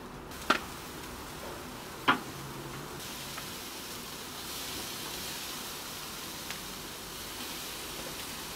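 Marinated mutton neck pieces sizzling on a charcoal barbecue grill, a steady hiss that grows brighter after about three seconds. Two sharp knocks come in the first couple of seconds.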